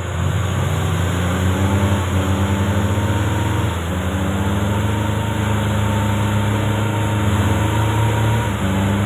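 Off-road 4x4's engine revs up at the start, then is held at high revs under heavy load as it strains in deep mud; it is not managing the pull.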